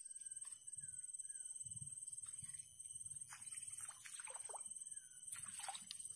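Water splashing in a few short bursts from about three seconds in, as a tilapia is struck and hooked on a pole rod and thrashes at the surface. A steady high-pitched buzz and a few faint chirps run underneath.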